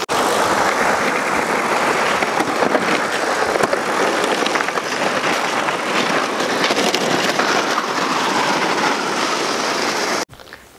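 Sled loaded with fishing gear dragged across rough lake ice: a loud, steady scraping hiss that cuts off suddenly near the end.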